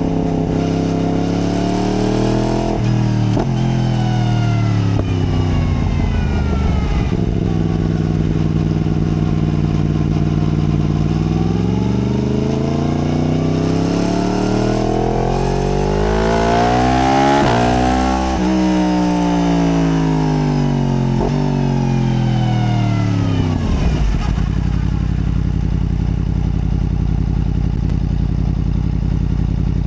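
Yamaha MT-10's crossplane inline-four engine accelerating through several gears, its note climbing and dropping back at each upshift and rising to a peak about halfway through. It then winds down as the bike slows and settles into a steady low note for the last several seconds.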